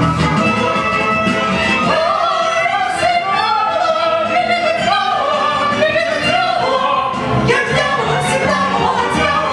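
A woman singing an operetta song with a wide vibrato over an instrumental accompaniment.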